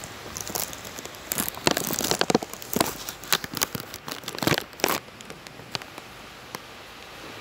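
Steady hiss of heavy rain, overlaid for the first five seconds or so by loud, irregular rustling and crackling of cloth rubbing against the phone's microphone as it is handled. The crackling stops about five seconds in, leaving only the rain.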